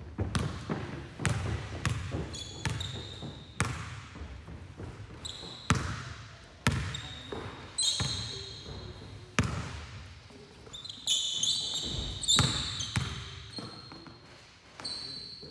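Basketball dribbled on a hardwood gym floor: sharp, uneven bounces about once or twice a second. Short high sneaker squeaks on the court come between them, most of them in the second half.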